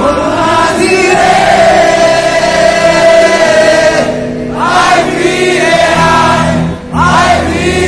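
Live concert music: voices singing a melody together over the band, holding long notes, with the audience singing along; short breaks in the singing about four seconds in and again near the end.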